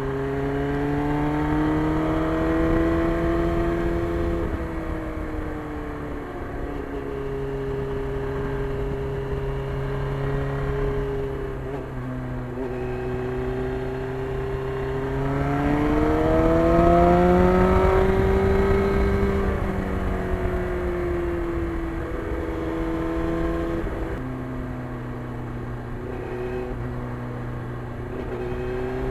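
1991 Yamaha FZR1000's inline-four engine running under way, its pitch holding steady, stepping down a few times as gears change and climbing sharply about halfway through as the bike accelerates, over a low rushing noise.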